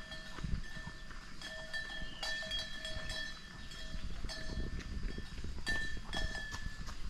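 Animal calls in the open: steady held high tones that break off and start again every second or so, with a low rumble underneath.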